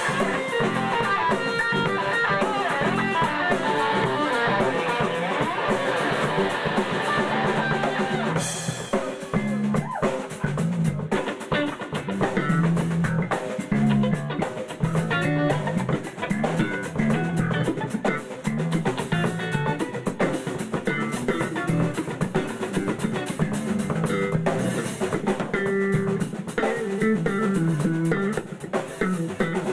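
Live instrumental band music: a Stratocaster-style electric guitar played through an amplifier, with a Pearl drum kit. About eight seconds in there is a crash, and after it the drums play more fully under the guitar.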